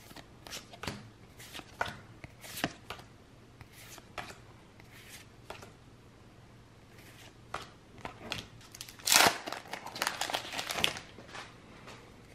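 Foil booster-pack wrappers crinkling and trading cards being handled, in scattered short rustles and clicks, with a louder stretch of crinkling about nine to eleven seconds in.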